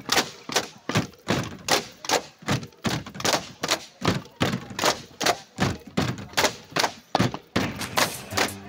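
Bamboo poles of a Cheraw bamboo dance clacking together and against the base bars in a steady rhythm: sharp wooden knocks, about two to three a second.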